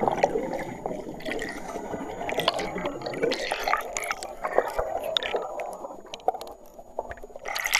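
Water sloshing and splashing in a tub as a person's head and hair are pushed about in it, with many small irregular splashes and drips.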